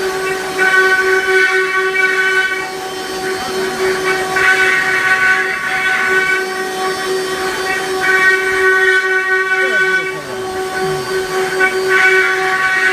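Spindles of an eight-head, four-axis CNC router whining steadily as they carve wooden legs turning on rotary axes. The cutting noise swells and fades about every three to four seconds as the bits bite into the wood.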